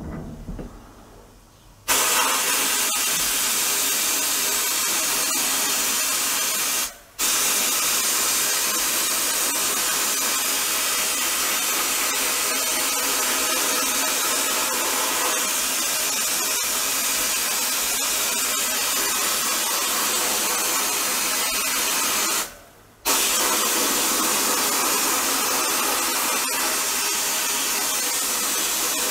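Sandblast cabinet nozzle blasting abrasive onto the cast body of a Leytool hand drill: a steady, loud hiss that starts about two seconds in and stops twice for a moment when the trigger is let off.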